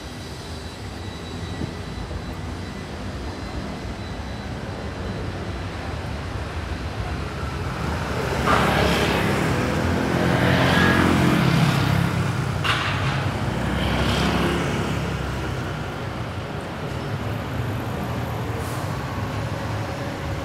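Street traffic on a city boulevard, with a heavy motor vehicle passing close by: its engine hum swells from about eight seconds in, peaks about halfway through and fades again. A short hiss comes during the pass.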